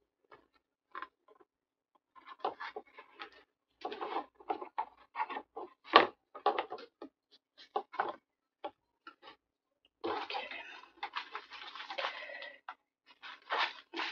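Hands handling paper pages and craft materials at a table: a run of light taps and clicks, then a couple of seconds of paper rustling and scraping about ten seconds in, then more taps.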